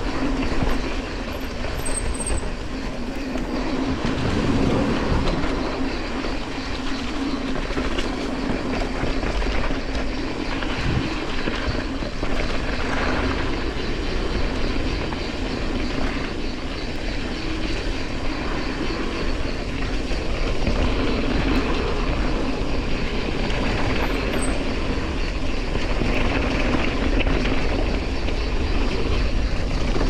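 Mountain bike riding down a dirt trail: continuous tyre noise and rattling of the bike over rough ground, with low wind rumble on the microphone.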